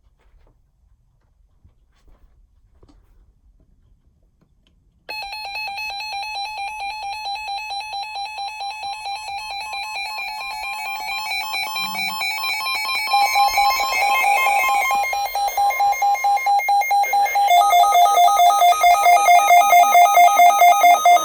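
Electronic alert tone: a loud, rapidly pulsing multi-pitch chime that starts abruptly about five seconds in, grows louder, and changes pitch twice.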